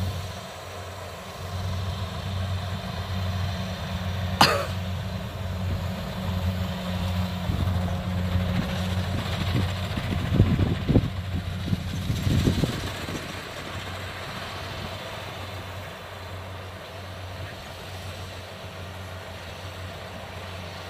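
Kubota DC68G combine harvester's diesel engine running steadily while it works the field. There is one sharp crack about four and a half seconds in and a few low knocks around ten to twelve seconds in, and the engine sound drops to a lower level after about thirteen seconds.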